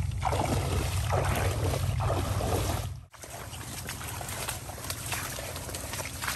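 A small boat's motor running with a steady low hum, over water and wind noise; about three seconds in the sound drops abruptly to a quieter hum.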